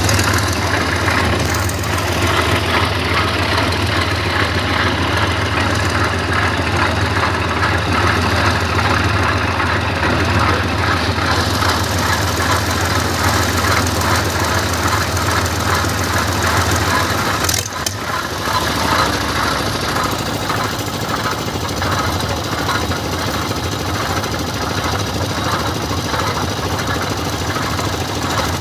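A construction-site machine engine runs steadily with a strong low hum. About seventeen seconds in it dips briefly, and then it settles into a fast, even pulsing.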